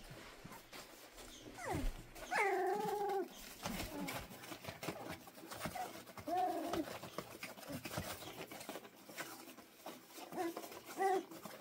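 Puppies about four and a half weeks old whining and yipping: a longer whine about two seconds in, then shorter calls around six and eleven seconds. Light clicks and rustling from the puppies moving about on a plastic tarp scattered with wood shavings.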